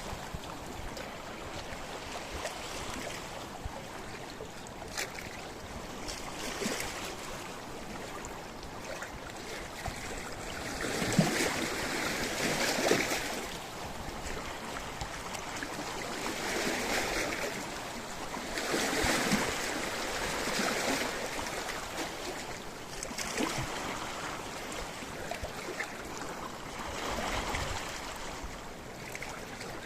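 Sea waves washing in and out against a rocky shore, swelling every few seconds, with water splashing and sloshing among the rocks.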